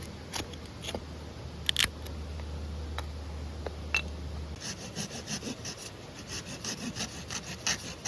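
Rapid, rhythmic scraping strokes, like a saw or rasp working wood, begin about halfway through after a few scattered clicks. A low steady hum stops just before the strokes start.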